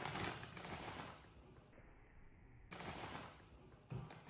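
Crinkling of a plastic pack of disposable cotton face towels as hands pull sheets from it, in two spells of rapid crackling with a short lull about halfway.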